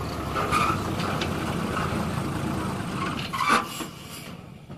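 Engine of an old military-style cargo truck running at idle with a steady low rumble. About three and a half seconds in comes a short, loud burst of hiss, after which the sound is quieter.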